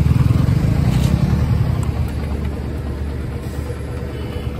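Two Yamaha motorcycles, an FZ and an R15 V3, idling side by side, their single-cylinder engines running steadily, a little louder in the first second or so.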